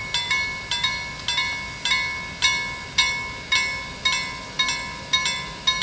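Railway level crossing warning bell ringing in even strokes about twice a second, each stroke ringing and dying away before the next, signalling an approaching train.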